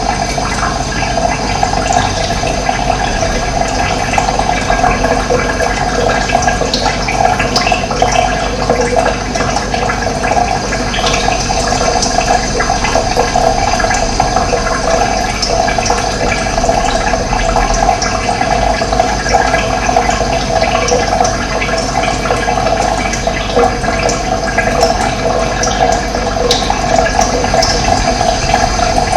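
Running water flowing steadily: a dense, even rush of water that keeps going without a break.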